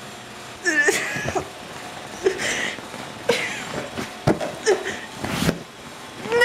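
A woman wailing and sobbing in a string of short, high cries that bend up and down in pitch, with a sharp knock about four seconds in.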